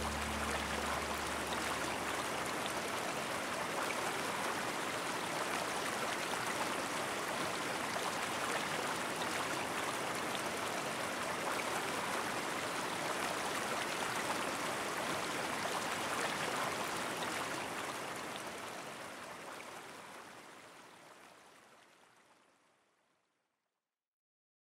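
Steady rush of flowing river water, which fades out over the last several seconds into silence.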